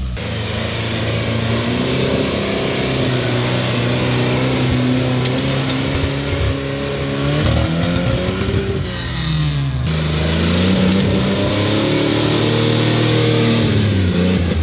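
Off-road rig's engine working under load, its pitch rising and falling in two long swells with a short dip about two-thirds of the way through.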